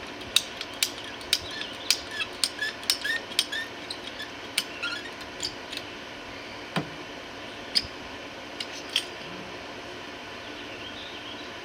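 Hand tools clicking and snipping in a quick run of sharp clicks through the first half, then a few scattered ones.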